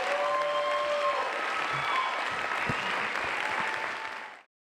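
Audience applauding, with a few voices calling out over the clapping; the sound fades out quickly about four seconds in.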